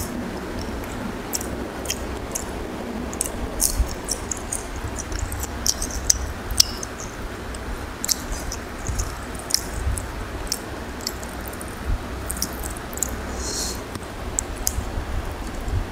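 Eating rice and curry by hand: wet, squishy sounds of fingers mixing rice with curry on a plate, along with chewing, with many short, sharp clicks scattered throughout.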